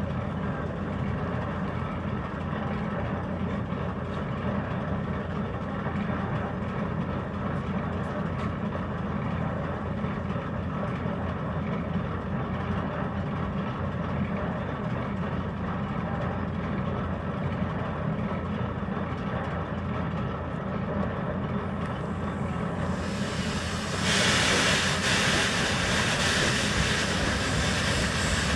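A steady low mechanical rumble from running machinery. About 24 seconds in, a loud hiss suddenly joins it.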